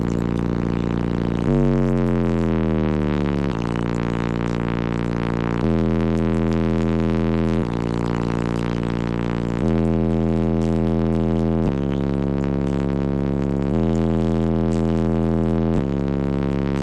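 Car audio subwoofer system of six DC Audio Level 5 12-inch subwoofers playing a bass-heavy track at high volume: long held bass notes that change pitch about every two seconds, with a sliding note about two seconds in.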